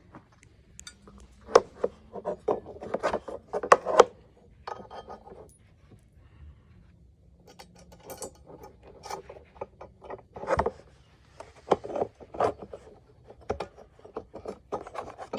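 Through bolts and a spacer sleeve being worked into the console's mounting arms by hand: irregular clicks, knocks and scraping of metal hardware in two busy spells, with the loudest knock near the middle.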